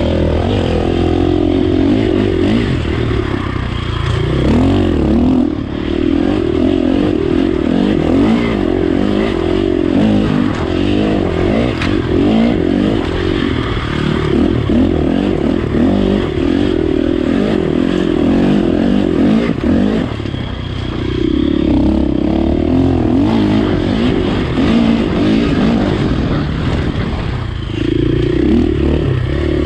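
Dirt bike engine being ridden hard, its revs rising and falling continually as the throttle is worked, with a few short drops in revs at about 5, 10, 20 and 27 seconds in.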